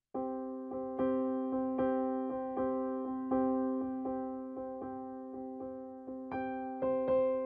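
Background keyboard music: a steady run of repeated notes over held tones, starting abruptly out of silence just after the start.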